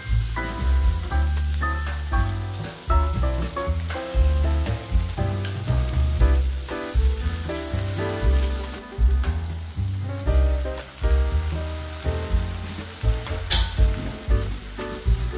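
Sliced onions and cherry tomatoes sizzling in a frying pan, stirred now and then with a silicone spatula, under background music with a steady bass beat.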